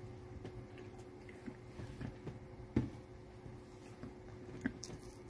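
Faint handling noises and a few soft knocks, the sharpest about three seconds in and another near the end, over a steady low hum.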